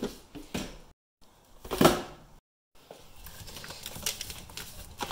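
Knocks and clatter of stored things being shifted by hand while a lawnmower is pulled out, with one louder knock about two seconds in. The sound drops out twice into dead silence where the clips are cut together, then runs on as quieter small clicks and rustling.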